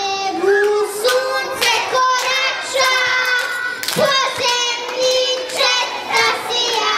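A group of children singing together in long held notes, with scattered hand claps.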